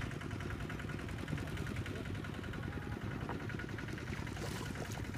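Small boat's engine running steadily, a fast, even putter.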